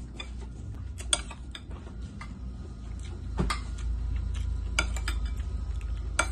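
Metal spoon clinking and scraping against ceramic plates and a serving bowl while adobo is served: about five sharp, separate clinks spread over several seconds, over a steady low hum.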